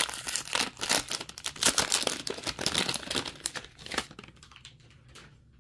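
Plastic wrapper of a Rookies and Stars football card pack crinkling and tearing as it is opened by hand, with dense crackling for about four seconds, then fainter rustles.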